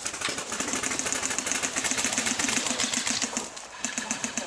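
Airsoft electric gun firing on full auto: a fast, even mechanical rattle of about a dozen shots a second, in two long bursts with a short break a little past three seconds in.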